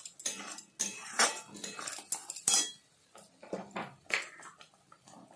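A spoon scraping and knocking against a kadai while stirring thick saag paste, in irregular strokes about a second apart.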